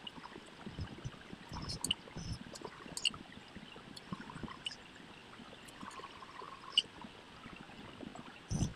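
Colour pencil tip scratching and tapping on paper as dots are dabbed on, heard as a soft rustling hiss with scattered sharp ticks and a few dull knocks against the table.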